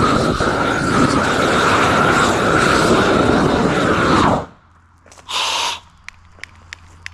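Propane weed-burner torch running with a steady roar, cut off abruptly about four seconds in. A brief hiss follows about a second later, then faint ticking.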